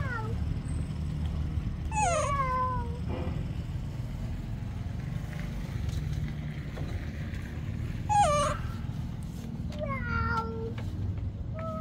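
Baby macaque giving three short, high squeaky calls that slide down in pitch, about two, eight and ten seconds in, over a steady low hum.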